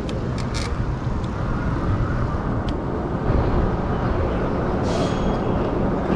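Road traffic noise mixed with wind buffeting the microphone of a moving bike-mounted camera, a steady low rumble throughout. A short hiss comes about five seconds in.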